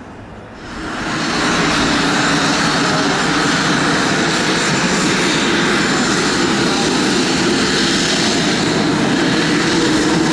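Short 360's twin PT6A turboprop engines running loud and steady as the aircraft rolls along the runway, the level rising sharply about a second in.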